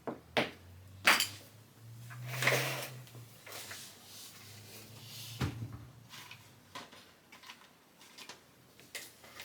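Metal clicks and light clatter of small steel clipper-blade parts being handled on a workbench, with a sharp click about a second in and another about halfway.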